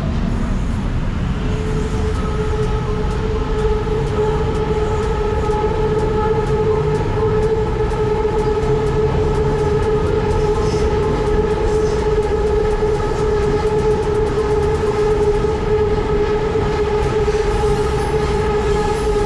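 Train running at a steady speed: a low rumble with a steady whine that comes in about a second and a half in and holds at one pitch, with a run of rapid light ticks near the end.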